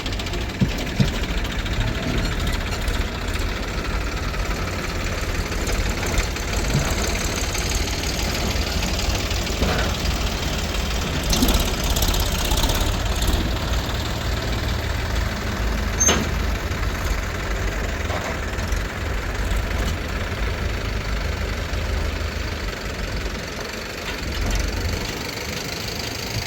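Diesel engine of a JCB 3DX backhoe loader running steadily while it works, with a few short sharp knocks, about a second in and again about sixteen seconds in.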